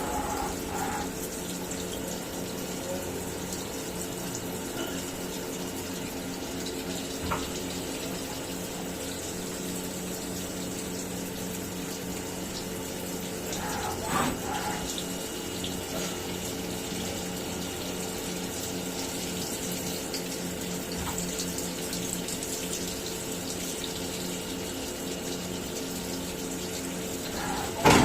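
CNC milling machine running steadily, a constant hum with a high whine over the hiss of flowing coolant. Three short knocks break in, about 7 and 14 seconds in and again at the very end.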